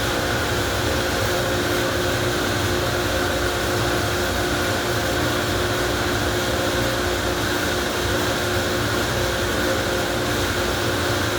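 Car wash machinery running steadily: a constant hiss with a hum and several fixed whining tones, unchanging throughout.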